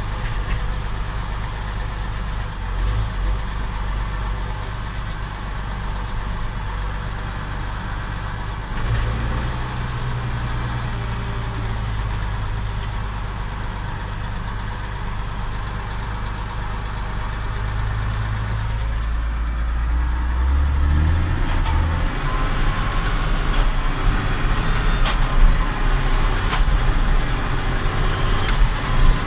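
Case IH Magnum 7140 tractor's six-cylinder diesel engine running steadily. Its pitch steps up about a third of the way in and shifts again about two-thirds through, after which it gets louder, with a few sharp clicks near the end.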